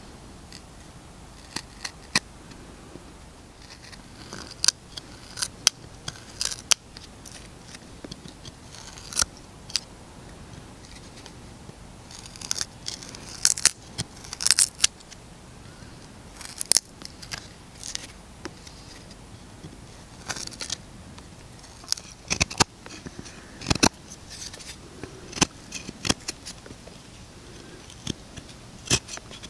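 Large knife blade shaving and carving a piece of wood: irregular short, crisp scraping cuts, a few every couple of seconds.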